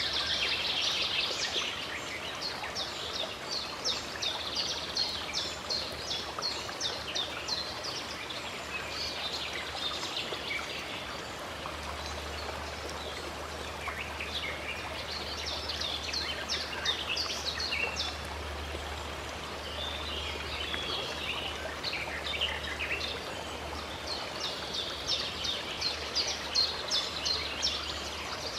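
Songbirds singing in bursts of quick, repeated high chirps over the steady rush of a flowing stream.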